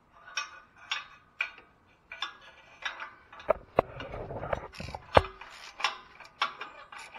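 Hand socket ratchet clicking in short back-and-forth strokes, about two a second, loosening a bolt on a catalytic converter. Two sharp metal knocks a little past the middle, the second the loudest.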